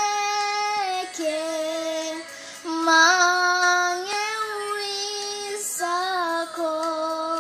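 A young girl singing an Indonesian children's song, one voice in long held notes that step up and down in pitch.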